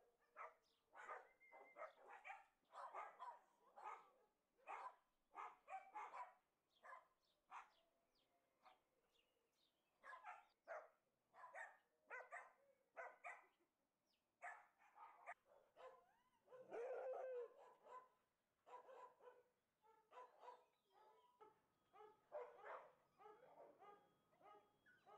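Dogs barking over and over, faintly, about one to two barks a second, with one longer drawn-out call about two thirds of the way through.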